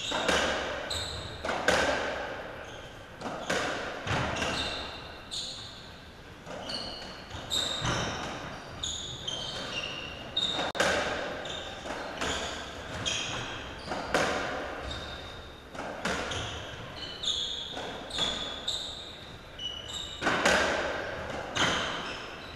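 A racketball rally on a squash court: the ball cracks off rackets and walls about every one to two seconds, with short high squeaks in between, typical of players' shoes on the court floor.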